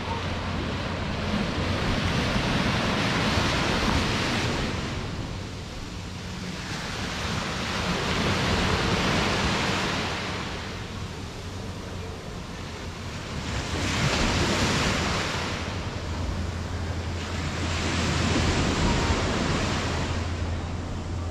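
Pacific surf breaking and washing in four swells, about five seconds apart, with a steady low hum underneath.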